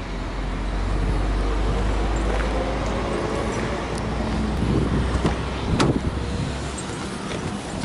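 Steady low outdoor rumble, then a sharp click about six seconds in as the driver's door of a Subaru Impreza hatchback is opened.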